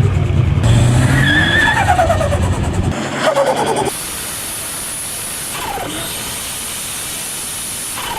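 Car engine with turbo or supercharger revving and letting off, its induction whine sliding down in pitch as the revs drop. About three seconds in the engine rumble cuts away, leaving another falling whine and then a steady hiss.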